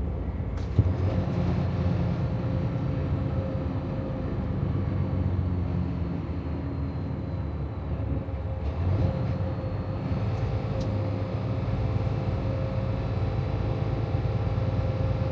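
Freightliner Cascadia semi truck's diesel engine running, with a steady low drone and a constant faint whine as the truck creeps at walking pace over a weigh-station scale. A single light knock about a second in.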